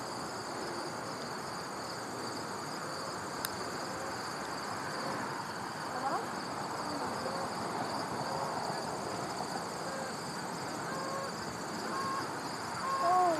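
Insects in the grass trilling steadily, a continuous high-pitched chorus over faint outdoor background noise. A short, louder pitched sound comes in near the end.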